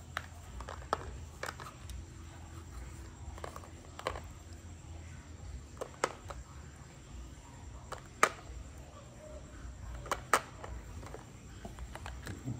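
Clear plastic battery case being handled and snapped open: about ten scattered sharp plastic clicks and taps, the loudest about eight and ten seconds in, over a steady low hum.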